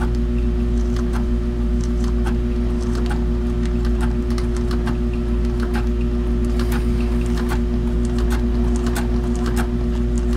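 Industrial walking foot (compound feed) sewing machine stitching thick veg-tan belt leather, its feet climbing over a second layer. A steady motor hum runs under light clicks from the stitching, about two a second.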